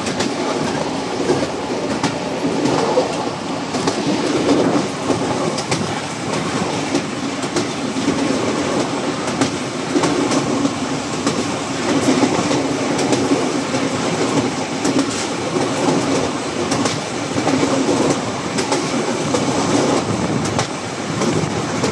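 Bangladesh Railway commuter train running along the track: a steady rumble of wheels on rails, with scattered clicks from the wheels passing over the rail joints.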